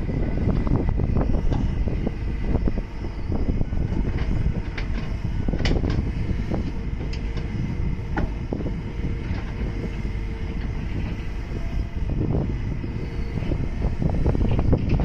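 Hydraulic excavator at work: its diesel engine runs steadily under load, with a faint steady whine and many irregular knocks and clanks from the working machine.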